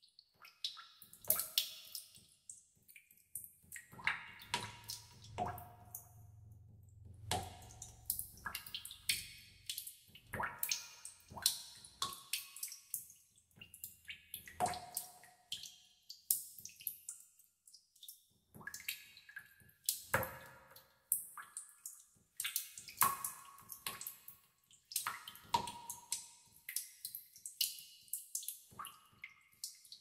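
Water drops falling one by one into a pool in a cave, each a sharp plink with a short pitched ring and echo. They come at an uneven pace of about one or two a second.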